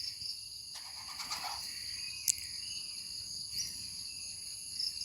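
Steady high-pitched chirring of an insect chorus, with one short, sharp click a little past two seconds in.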